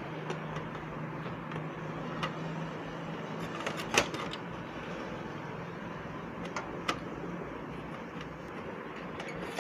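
Plastic side cover of a laser printer being pressed and fitted against the casing, giving a few scattered clicks and taps, the sharpest about four seconds in, over a steady low hum.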